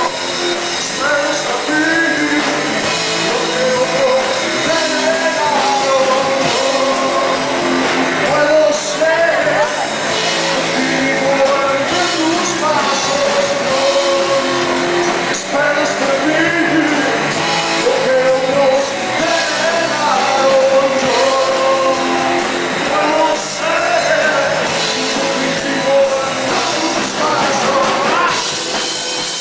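Rock band playing live, loud: electric guitars, bass and drums, with a voice singing a melodic line over them.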